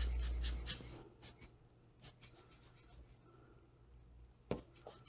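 Gloved hands handling a hand-squeezed air blower and a blending-solution squeeze bottle over an alcohol-ink tile: a low rush of air with quick scratchy ticks in the first second, then faint irregular scratching and rubbing, and one sharp click about four and a half seconds in.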